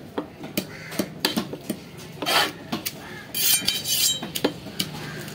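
A fish-cutting knife on a wooden chopping block: a run of sharp knocks a few tenths of a second apart, with a scrape and a stretch of metallic clinking and scraping about two-thirds of the way through.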